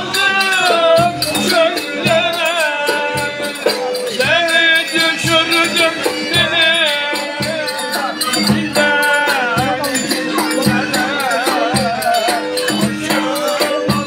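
Black Sea folk dance tune played live on violin and davul: a wavering violin melody over regular deep bass-drum strokes, with sharp clicking strokes between them.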